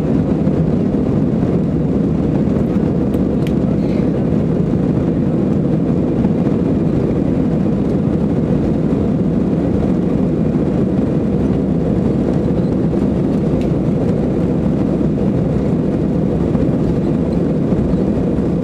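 Airbus A319 cabin noise on its takeoff roll on a wet runway: a steady, loud rumble of the engines and the wheels.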